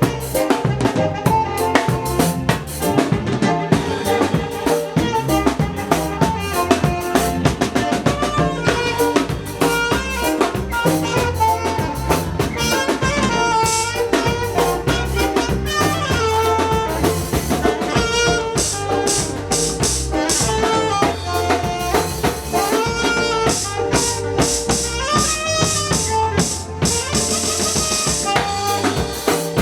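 Live band playing at a sound check: a drum kit with bass drum and rimshots keeps a steady beat under a low bass line, and from about nine seconds in a wavering lead melody plays over them.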